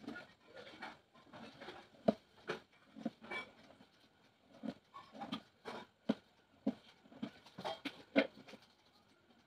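Folded craft paper handled by hand, giving irregular short rustles and crinkling taps.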